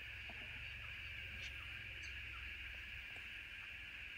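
Faint outdoor bush ambience: a steady high hiss with a low rumble beneath it, and a few short, faint bird chirps scattered through it.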